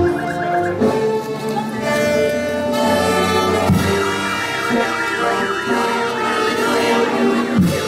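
Instrumental band music: sustained chords under a wavering high melody line.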